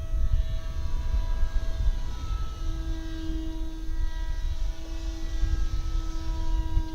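RC paramotor's motor and propeller running with a steady whine, its pitch holding nearly constant, under heavy wind rumble on the microphone.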